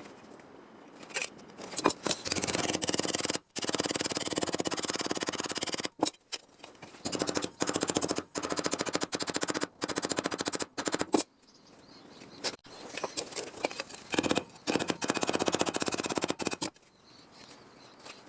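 MIG welder running on thin car-body sheet steel: several bursts of fast, even crackling, each one to four seconds long, separated by brief pauses.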